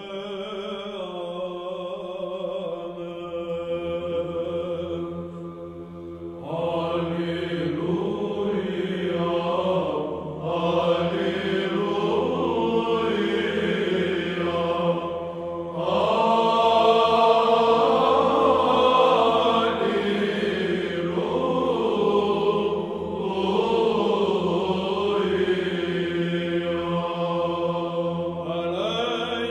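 Background music: a chant sung over a steady held drone note.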